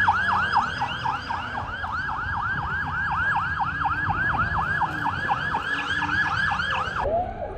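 Police car siren in a rapid yelp, sweeping up and down about four to five times a second; near the end it switches to a lower pattern. A low vehicle rumble sits underneath.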